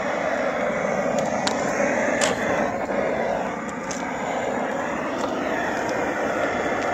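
Propane torch burning with a steady rushing hiss as it heats the stainless burn chamber of an oxalic acid vaporizer, with a few light clicks from about a second to four seconds in.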